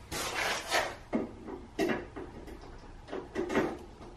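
Hand-handling noise at a mower's frame: several irregular short clunks and scrapes of parts being moved and fitted by hand.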